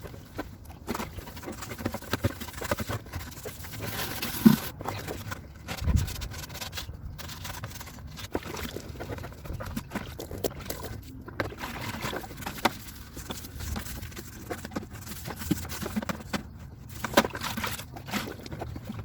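Dishes, utensils and saucepans being handled in hand washing: irregular clinks, knocks and scraping.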